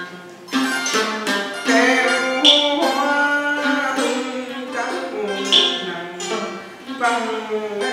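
Ca Huế chamber music: a đàn nguyệt (moon lute) and a đàn tranh (board zither) plucked together in a flowing tune, the notes struck one after another and some bent in pitch as they fade.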